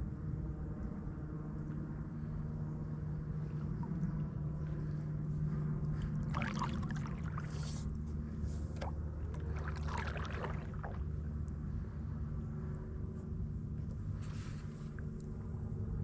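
Stand-up paddleboard paddling: the paddle blade pulls through the water and pours and splashes off it a few times, mostly in the middle of the stretch, over a steady low hum.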